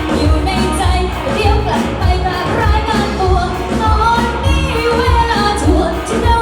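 Live pop song: a singer over a band, with a kick drum keeping a steady beat of about two hits a second.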